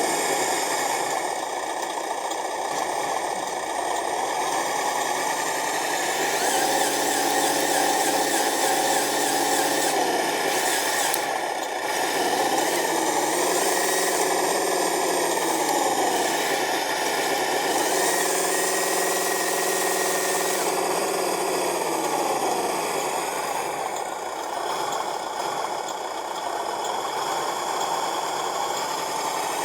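Radio-controlled model truck's motor and drivetrain running continuously, its pitch rising and falling every few seconds as the throttle changes.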